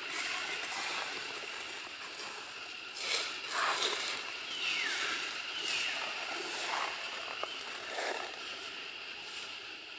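Outdoor ambience with a steady high drone. Through the middle come a few rustling noises and two short, high calls that fall in pitch, typical of macaque monkeys calling.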